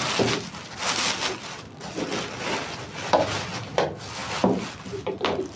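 Clear plastic packaging bag rustling and crinkling as a boxed stand mixer is handled inside it, with a few short knocks.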